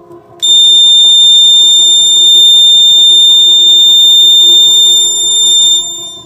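Buzzer of a homemade door alarm sounding one continuous, loud, high-pitched tone that starts about half a second in and cuts off near the end.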